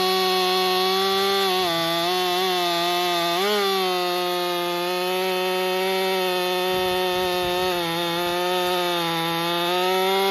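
Ported Stihl MS261 M-Tronic two-stroke chainsaw running at full throttle through a cut in poplar, its engine note holding high and steady with a few brief dips as the chain bites.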